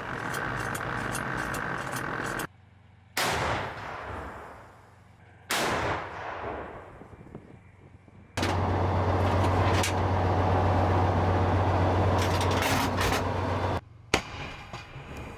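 Tracked self-propelled howitzer firing: sudden heavy shots that fade away slowly, about three seconds in, about five and a half seconds in, and a sharp one near the end. Between the shots the vehicle's engine drones steadily and low.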